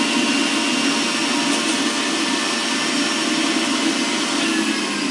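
Breville juicer's electric motor running steadily on its high setting, a constant whirring with a faint whine.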